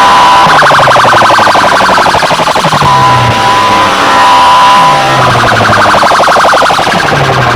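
DJ sound systems blaring an electronic siren-style track: a held high tone alternates with a fast pulsing warble, over repeated falling bass sweeps.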